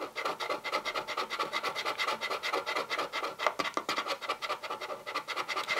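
A coin scraping the scratch-off coating of a security label on a cardboard box, in rapid, even back-and-forth strokes.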